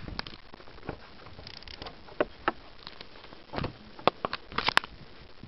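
Irregular crunching steps in snow with scattered clicks and knocks of handling noise, the sharpest click near the end.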